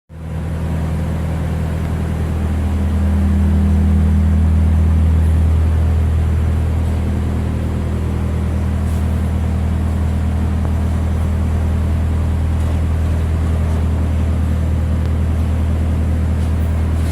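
Haas TL-1 CNC lathe running under power: a steady, loud low motor hum that swells slightly a few seconds in and then settles.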